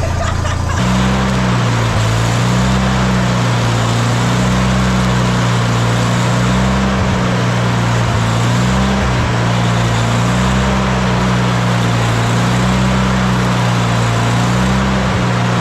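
Engine-driven stick welder at work: about a second in, its engine picks up to a higher, steady speed under load while the welding arc crackles and hisses.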